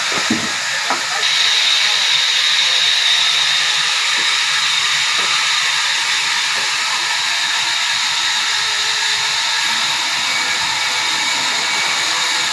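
Sawmill saw cutting through a red walnut log: a loud, steady hiss with a high whine that sets in about a second in, after a couple of knocks.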